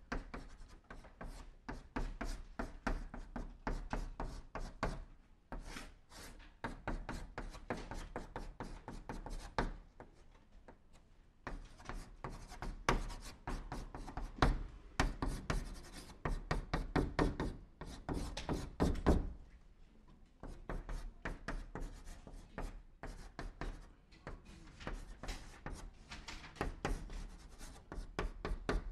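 Chalk writing on a blackboard: quick, dense taps and scratches of the chalk stick as characters are written stroke by stroke, in runs broken by brief pauses, the longest about ten seconds in and again near twenty seconds.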